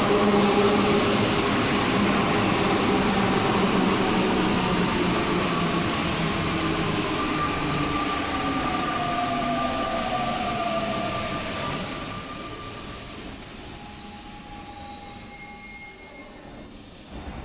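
Santiago Metro NS-93 train pulling into the station. Loud running noise with a whine that falls in pitch as it slows, then a high brake squeal for the last few seconds before the sound drops away sharply near the end.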